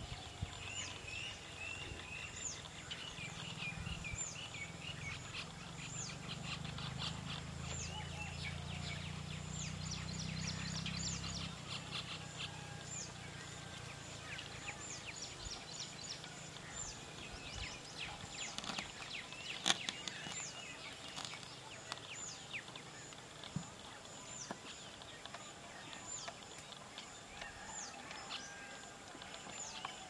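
Birds calling in a tree: many short, sharp high chirps, with a busy chatter in the first part. A low drone runs underneath and stops about eleven seconds in.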